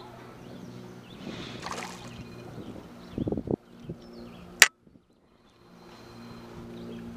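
A small hooked fish splashing as it is lifted from the water and swung aboard a boat, then a couple of heavy thumps of handling against the boat and a single sharp click, over a steady low hum.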